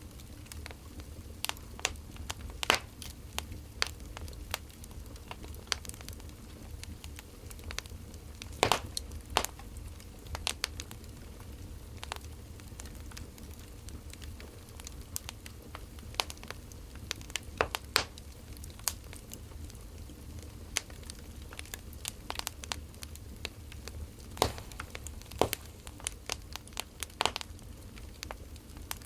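Wood fire crackling: irregular sharp pops and snaps, a few louder ones now and then, over a steady low rumble.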